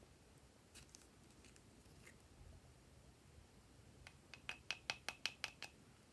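Soft plastic squeeze bottle being squeezed as it pours thick slime: a quick run of about eight sharp clicks or pops, about five a second, starting about four seconds in, with a couple of fainter ticks before.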